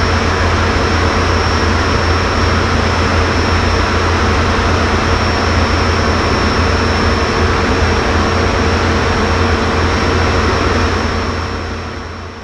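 Cockpit noise of a BAC Jet Provost in flight: a steady roar of its Viper turbojet engine and airflow, with a strong low rumble and a constant high whine. The sound fades out near the end.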